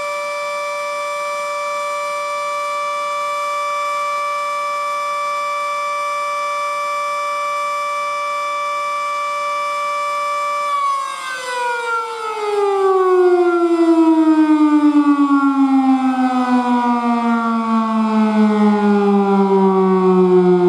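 FS&S Model 7B outdoor warning siren sounding a steady tone, then about ten seconds in its pitch starts falling in a long slide as it winds down at the end of its five-minute alert. Its loudness pulses rapidly as the tone drops.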